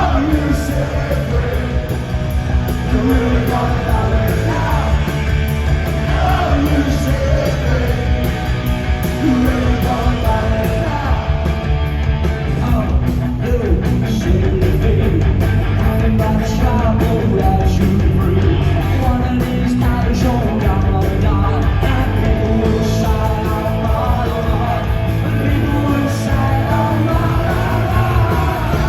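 Punk rock band playing live at full volume, a singer's shouted vocals over the band.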